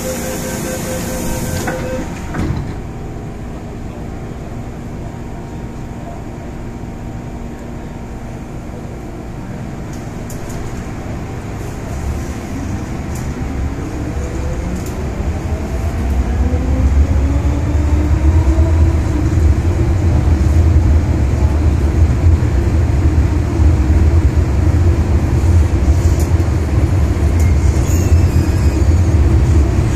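Inside an MTR M-Train electric multiple unit: a pulsing door-closing chime stops about two seconds in, followed by a knock as the doors shut. Then the traction motors whine, rising in pitch as the train accelerates away, and this gives way to a loud, steady low running rumble.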